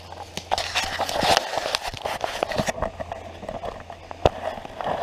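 Footsteps pushing through brush and dry leaf litter, with leaves crunching, twigs cracking and vegetation brushing against clothing; one sharper crack a little after four seconds in.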